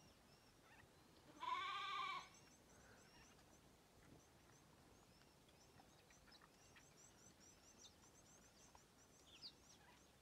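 An impala giving a single bleat, a little over a second in, lasting under a second. Faint high chirps repeat quietly in the background.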